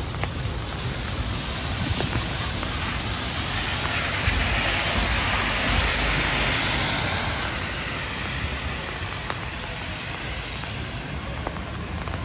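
Heavy rain hissing on a city street, with a vehicle passing that swells to a loud rushing hiss about halfway through and then fades away.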